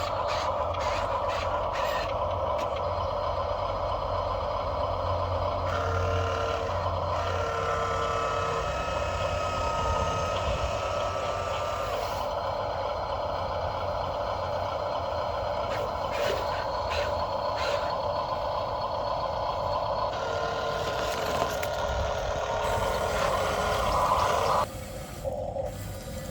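Small electric motors and gearboxes of RC construction models whining steadily, with extra pitched tones joining in twice as they work; the whine cuts off suddenly near the end.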